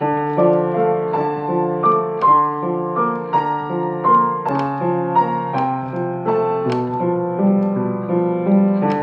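Piano playing a composition in D minor: a steady, flowing line of notes over held lower notes.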